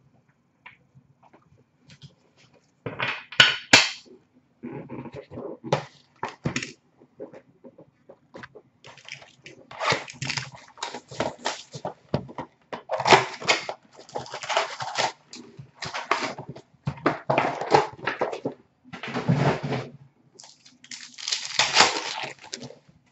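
A cardboard hockey card retail box being torn open and its card packs handled and ripped, heard as a run of short, scratchy rustling and tearing bursts that grow busier about a third of the way in.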